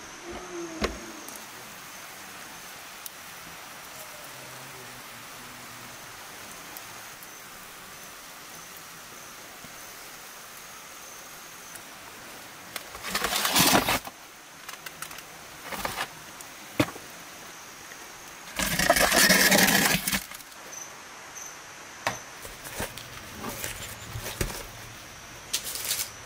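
A metal baking tray scraped across the floor of a mud oven as it is pulled out, in two loud scraping bursts about halfway through, after a knock near the start as the oven's wooden door is taken off. Light knocks and clinks of plates near the end, over a faint steady high-pitched tone.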